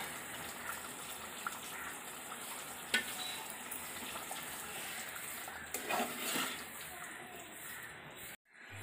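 Chicken gizzards and livers sizzling in masala gravy in a metal pot as a metal spoon stirs them, with a few sharp clinks of the spoon against the pot. The sound drops out for a moment near the end.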